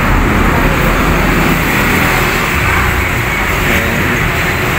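Steady road traffic noise, an even low hum of passing vehicles.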